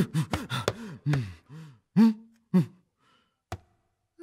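A man's low voice making a quick run of short non-word sounds, each rising and falling in pitch, with one held note about two seconds in. It goes quiet after that, and a single sharp click comes about three and a half seconds in.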